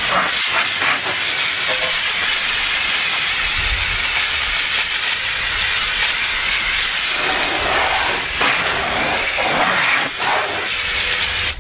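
Garden hose spray nozzle jetting water onto a car wheel and tyre, a steady loud hiss of spray rinsing off wheel soap suds. The tone shifts in the last few seconds as the jet moves over the tyre and into the wheel well.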